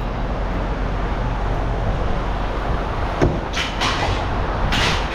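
Steady engine rumble of idling machinery, with one sharp clank of tossed scrap metal about three seconds in and short scraping clatters near the end.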